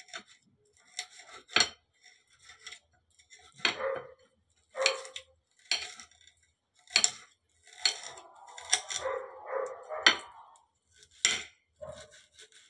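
Kitchen knife slicing frozen chicken liver on a ceramic plate. The blade clicks against the plate about once a second, with a longer stretch of scraping strokes about two-thirds of the way in.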